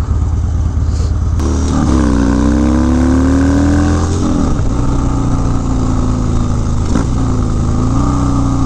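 Harley-Davidson Dyna's V-twin through a Bassani Road Rage 2-into-1 exhaust, pulling away from a stop: the engine note climbs for a couple of seconds, drops at a gear change about four seconds in, then holds steady with another brief dip near seven seconds as it shifts again.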